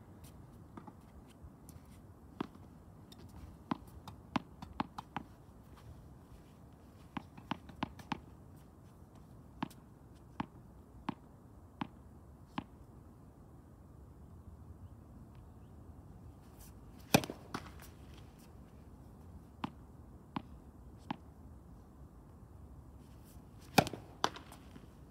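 Tennis balls being struck by rackets and bouncing on a court: a string of sharp pops at uneven intervals, with two much louder hits, one about two-thirds of the way through and one near the end.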